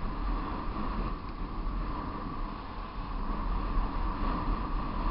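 Wind buffeting the camera microphone during a fast downhill descent: a steady rush with a heavy low rumble.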